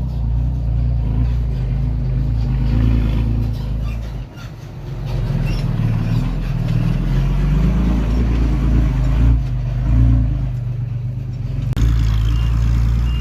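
Heavy diesel earthmoving machinery running, a steady low engine note that rises and falls under load. It dips briefly about four seconds in and changes abruptly near the end.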